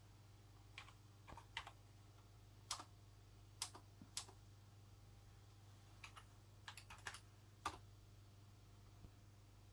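Computer keyboard keys pressed one at a time, about a dozen scattered keystrokes with a quick run of several around seven seconds in, over a faint steady low hum.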